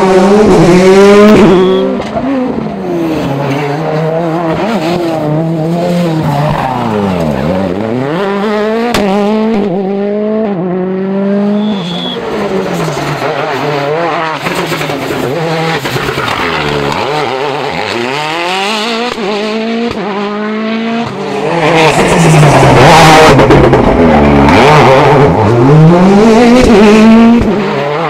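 World Rally Car's 1.6-litre turbocharged four-cylinder engine revving hard, the pitch climbing and dropping over and over through gear changes and lifts. It is loudest near the start and again in the last several seconds as a car passes close.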